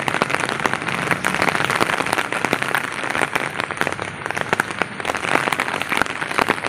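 Heavy rain falling steadily: a dense, even patter of many drops on wet pavement.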